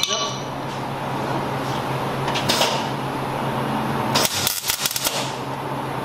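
Hand work on a race car's steel header pipes under the chassis tubing: a quick, irregular run of sharp clicks a little past four seconds in, over a steady low hum.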